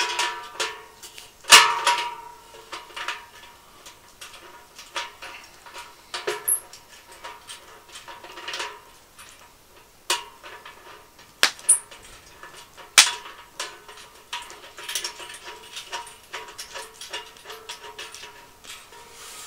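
Scattered metallic clinks and knocks from handling a double-walled stainless-steel fire bowl as its feet are screwed on. The louder hits ring briefly in the steel. The sharpest knocks come about one and a half seconds in and again around ten to thirteen seconds in.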